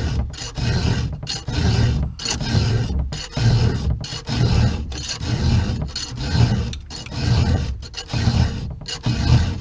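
Round file rasping across the cutters of an old Stihl 050 AV chainsaw's chain, hand-filed in a steady rhythm of strokes about two a second.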